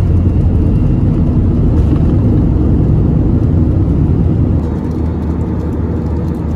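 Jet airliner engine and cabin noise heard from inside the cabin: a loud, steady rumble with a low hum. It eases slightly about four and a half seconds in.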